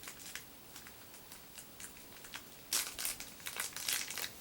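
Plastic toy packaging crinkling and crackling as it is handled and worked at to open it: faint scattered ticks at first, then a run of louder crackles from about two-thirds of the way through.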